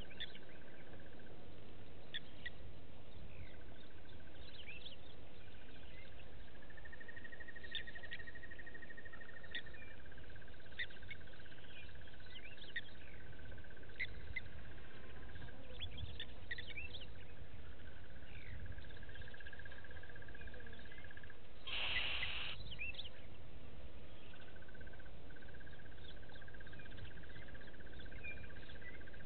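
Bush ambience: scattered short bird chirps over a steady high trill that breaks off now and then, with a brief louder hissing sound a little past two-thirds of the way through.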